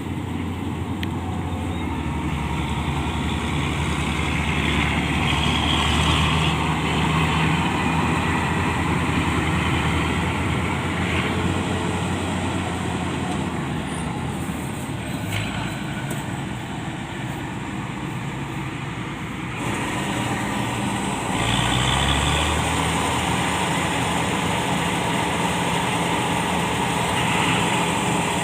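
Heavy diesel farm machinery running steadily under load, its sound shifting about twenty seconds in.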